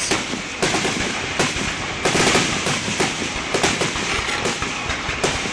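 Fireworks grand finale: many shells bursting in quick, overlapping succession, a continuous barrage of sharp bangs over steady crackling with no pause.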